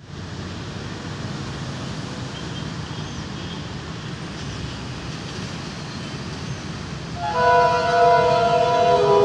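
Pakistan Railways diesel locomotive approaching with a steady low rumble. About seven seconds in, its horn sounds a loud chord of several notes, which shifts pitch near the end.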